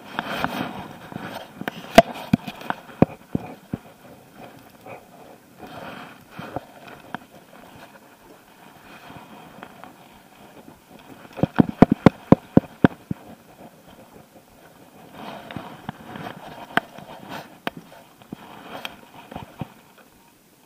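A baitcasting reel being handled and cranked on a fishing retrieve: scattered sharp clicks and rattles, with a quick run of clicks about twelve seconds in.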